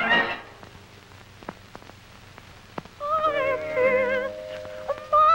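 A burst of brass cartoon music breaks off right at the start, leaving a quieter stretch with a few faint clicks. About three seconds in, a cartoon character's high, warbling voice starts singing with a strong wobble, over a held steady note.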